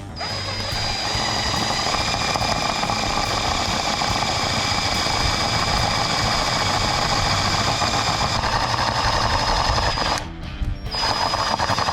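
Power drill running steadily with a high whine, drilling into the vehicle's pillar for 6 mm rivet nuts; it stops about ten seconds in and starts again briefly near the end.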